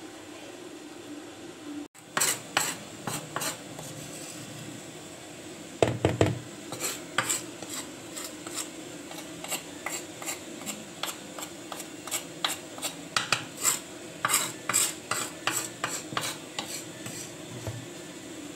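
Plastic spatula scraping ground spice paste off a stone mortar (cobek), in a long run of short, sharp scrapes and knocks. There is one heavier knock about six seconds in.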